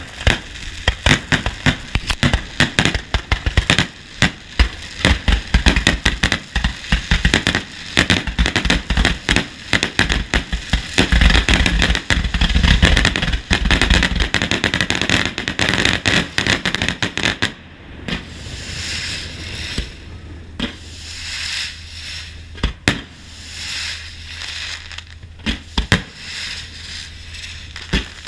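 Fireworks display: a dense, rapid barrage of bangs and crackling that cuts off suddenly a little past halfway. After that come fainter crackling and occasional single booms.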